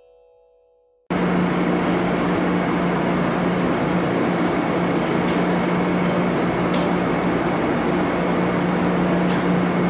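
MBTA Blue Line 700-series subway train standing at an underground platform with its doors open: a steady electrical hum over a constant rushing noise from the train's equipment, cutting in abruptly about a second in.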